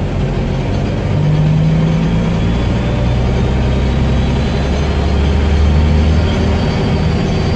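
Guy Arab III bus engine running under load, with a faint high whistle that rises slowly in pitch from about halfway through.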